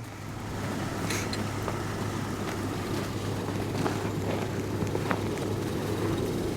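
A vehicle engine idling steadily, a constant low hum with a few faint ticks over it.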